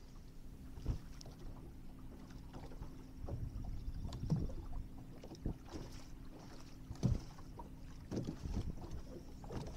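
Steady hum of a bass boat's bow-mounted electric trolling motor, with occasional short knocks against the boat.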